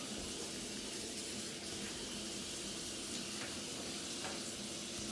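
Food frying in a pan: a steady, faint sizzling hiss.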